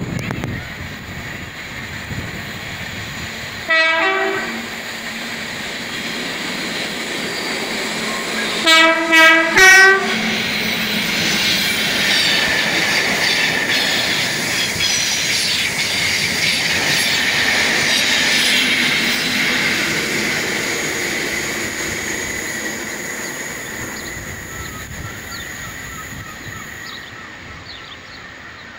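Class 73 electro-diesel locomotives sound their two-tone horn: one blast about four seconds in, then three short blasts around nine to ten seconds. The locomotives and their yellow Network Rail coaches then pass close by with a rumble and clatter of wheels, which fades away near the end.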